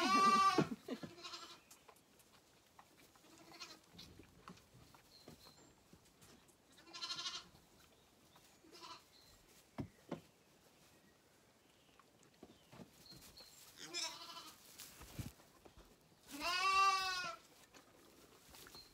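Zwartbles lambs bleating at bottle-feeding time: a loud bleat right at the start, a few shorter bleats in the middle and a long bleat near the end. A couple of faint knocks come between the calls.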